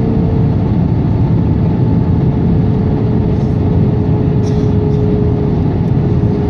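Jet airliner cabin noise in flight: a loud, steady rumble of engines and rushing air, with a thin steady hum running through it.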